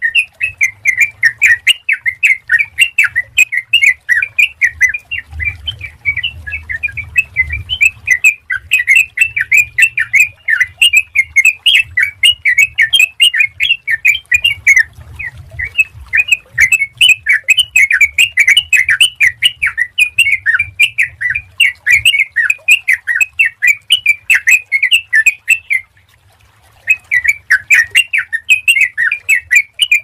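Yellow-vented bulbul (trucukan) singing continuously: a fast, unbroken stream of bubbly chattering notes, with one brief pause near the end.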